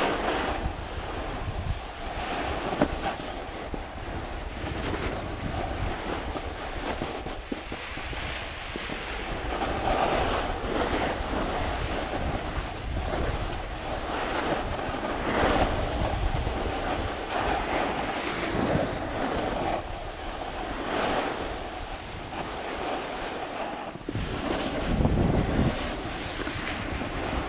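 Wind rushing over the microphone and a snowboard's edges scraping and sliding over snow, swelling and easing every few seconds as the rider turns.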